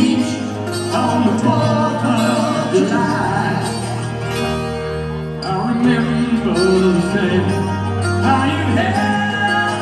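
Rock band playing a ballad live, two acoustic guitars over held bass notes, as heard from the audience in a concert hall.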